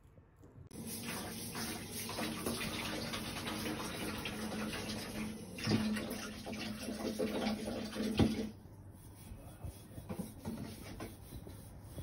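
Water running, a steady rush that starts about a second in and drops much quieter about eight and a half seconds in, with a couple of light knocks.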